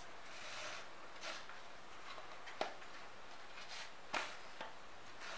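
Hands handling cotton thread and cloth at a wooden aari embroidery frame while tying the cloth to the rail: soft rustles of thread being drawn and knotted, with a few sharp light clicks, the loudest about two and a half seconds in and another about four seconds in.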